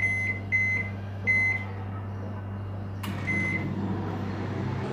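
Microwave convection oven keypad beeping as buttons are pressed to set it to preheat: several short beeps in the first second and a half, then a click and one more beep about three seconds in, over a steady low hum.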